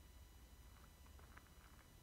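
Near silence: a faint low rumble, with a few faint short ticks in the second half.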